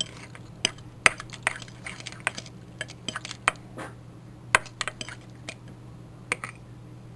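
A spoon clinking against the sides of a bowl while stirring barbecue sauce: irregular sharp clinks with a short ring, stopping shortly before the end.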